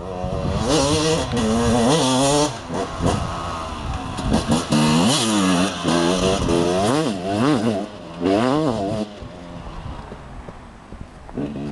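Motocross dirt bike engine revving hard as the bike rides past on a dirt track, its pitch climbing and dropping again and again. It fades away after about nine seconds.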